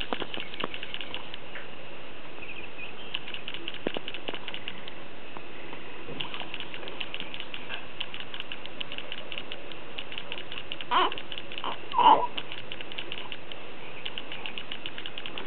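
A fast, steady clicking, like a small mechanism, throughout, with two short, louder sounds from the baby about eleven and twelve seconds in.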